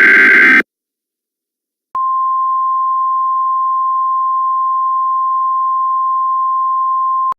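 Emergency Alert System tones: a harsh, buzzy data burst cuts off about half a second in. After a second or so of silence, a single steady, high-pitched attention tone comes in and holds for about five seconds before stopping abruptly.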